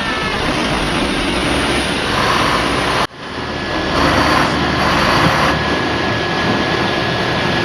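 A heavy machine's engine running loudly and steadily. It breaks off abruptly about three seconds in, and similar engine noise comes back straight after.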